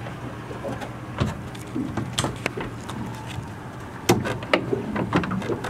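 Clicks and knocks of a fiberglass boat deck hatch and its flush pull latch being handled, with a sharp click about four seconds in as the latch is worked, over a steady low hum.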